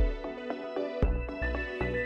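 Background music: an instrumental track of sustained pitched notes over a low bass beat that hits about once a second.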